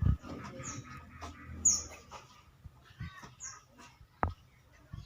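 A bird chirping, several short high falling chirps a second or two apart, with a few dull knocks.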